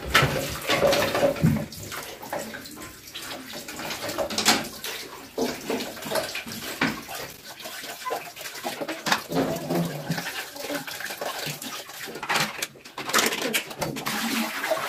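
Tap water running into a ceramic bathroom washbasin while plastic items are scrubbed and rinsed under it, with frequent light knocks and clatter of plastic against the basin.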